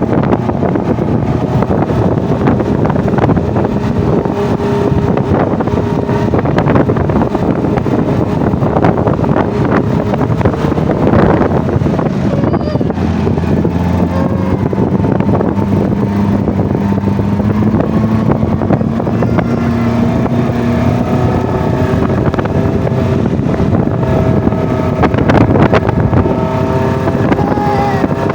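Engine of an off-road vehicle running steadily while under way, its pitch slowly rising about halfway through.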